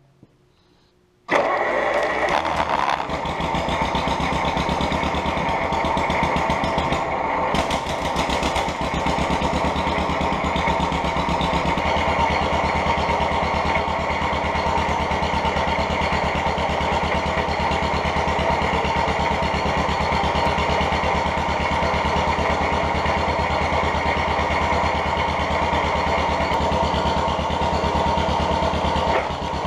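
John Deere MC crawler's two-cylinder engine starting about a second in, catching at once and then running steadily with an even firing pulse. It is the freshly revived, formerly seized engine, heard close up.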